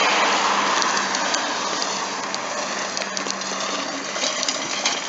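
Old-fashioned push reel lawnmower being pushed along, its spinning reel giving a steady whirring rush with a few light clicks, slowly fading.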